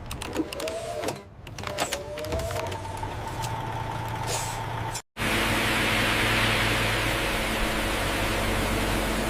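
Mechanical and vehicle-like noise with scattered clicks and short whines for about five seconds. After an abrupt cut it gives way to a steady rushing hum of industrial machinery.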